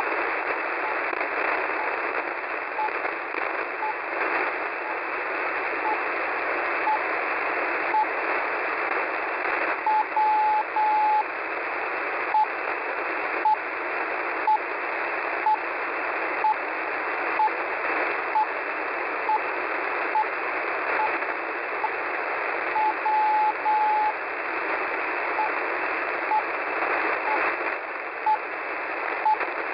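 Shortwave radio beacon on 4102 kHz heard through an SDR receiver: a single steady-pitched tone keyed in short beeps about once a second, over steady static hiss. Twice, about ten seconds in and again near 23 seconds in, a short beep is followed by two long tones.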